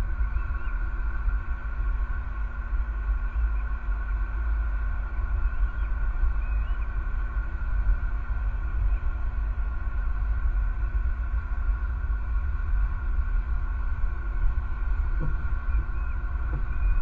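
Outdoor night ambience at an eagle nest camera: a steady low rumble under a continuous drone of several steady tones, with a few faint short chirps and two faint low knocks near the end.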